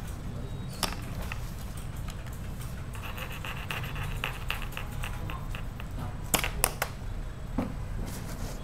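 A colouring pen rubbing back and forth on paper while an area is filled in with colour, a quick run of strokes in the middle. A few sharp clicks follow a little after, over a low steady hum.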